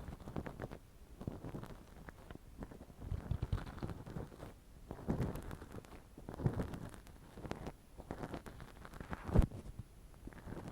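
Close-miked ASMR trigger sounds: crackly rubbing, sticky and tapping noises on the microphone, in bursts about every second, with one sharper tap about nine seconds in.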